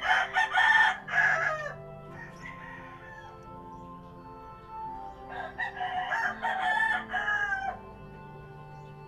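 A rooster crowing twice, each crow a pitched call of several syllables lasting about two seconds, with faint steady background music underneath.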